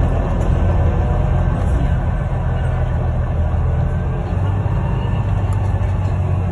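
Bus engine running with a steady low drone, mixed with road noise, heard from inside the passenger saloon while the bus drives along.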